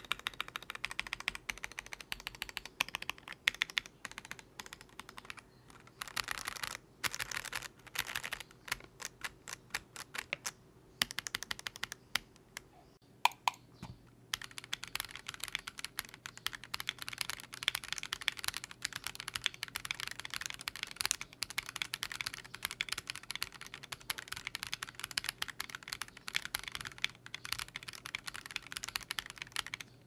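Typing on an Akko ACR Pro Alice Plus mechanical keyboard with Akko Crystal switches, a polycarbonate plate and stock ASA keycaps: fast runs of keystroke clacks, with a short pause about halfway through and then dense, continuous typing. The board is shown first with plate and case foam and then with the plate foam removed.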